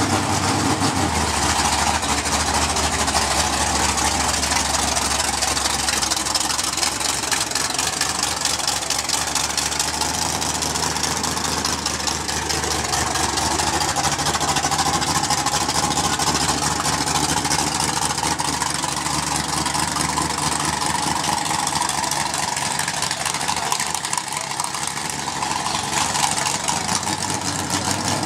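1975 Pontiac Trans Am drag car's V8 running steadily at idle through open headers.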